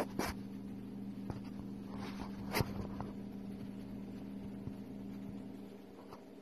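Steady low electrical hum, with a few sharp clicks and faint scratchy rustles over it.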